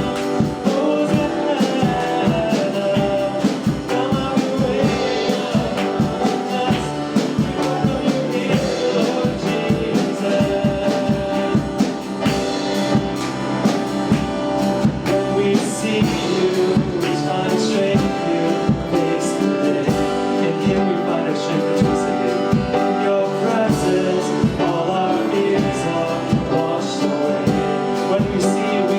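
Live church worship music: a band with drums and guitar keeping a steady beat, with singing.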